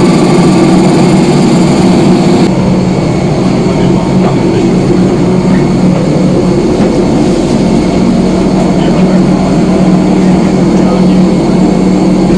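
Loud, steady mechanical drone with a low hum, from a vehicle or aircraft machinery running continuously.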